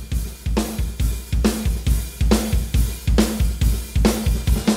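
Background music with a steady drum-kit beat: bass drum, snare and hi-hat with a sustained low note under it.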